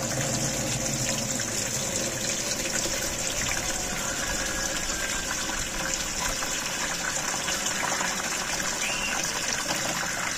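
Water from a garden hose pouring in a steady stream into the plastic tank of a hand-pump garden sprayer, splashing into the water already in it.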